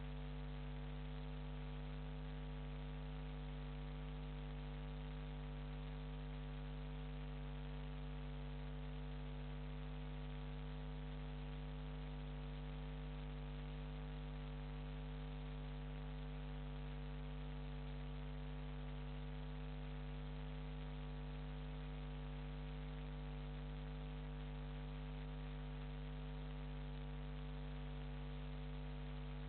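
Steady electrical mains hum with an even hiss, unchanging throughout: interference picked up in the webcam's audio.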